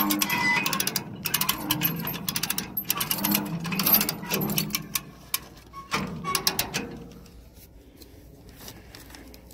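Trailer winch hauling a pickup truck up the ramps by its chain: a rapid mechanical clatter of clicks with a whine, which dies away about five seconds in.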